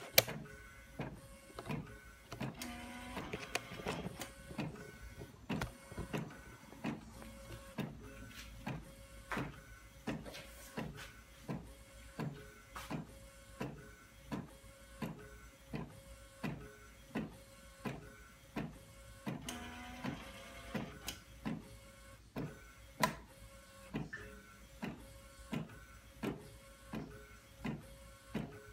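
Epson inkjet printer set up for direct-to-garment printing, printing onto a T-shirt: the print-head carriage shuttles back and forth with a clack at each pass, about one and a half a second, over a steady tone.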